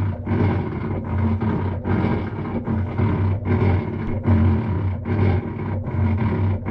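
Whirlpool washing machine in its rinse cycle making a loud, rhythmic grinding groan over a strong low hum, swelling a little more than once a second. It is the noise the machine makes when it will not wash properly, which the repairman likens to a gear dragging inside.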